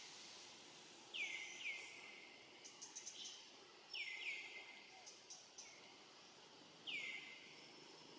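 A bird calling: five short whistled notes, each falling in pitch, in two quick pairs and then a single one, over a faint background hiss.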